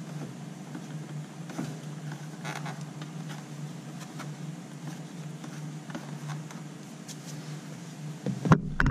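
A steady low hum, with faint rubs and taps of hands pressing a plastic mud guard onto a scooter's front fender. Near the end, loud knocks and rustling as the camera is handled.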